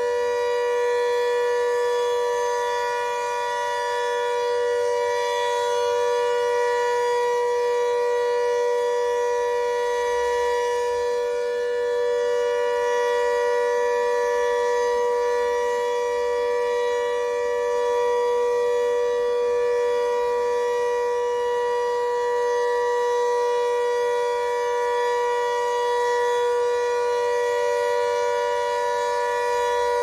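Emergency-alert alarm tone: several pitches sounding together, held steady without a break or change in pitch, at a constant loud level.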